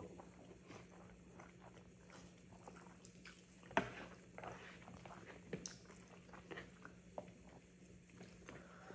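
Quiet mouth sounds of people eating noodles: chewing and slurping with scattered soft smacks and clicks, the sharpest about four seconds in.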